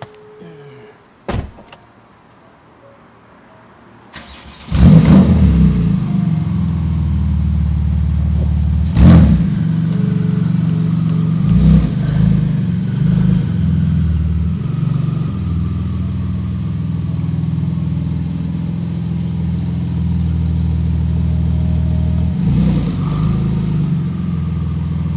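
A thump, then the Porsche 911 GT2 RS's 3.8-litre twin-turbo flat-six cranks and starts about five seconds in with a loud flare, and settles into a steady idle. The engine is blipped in a few short, sharp revs, the loudest about nine seconds in.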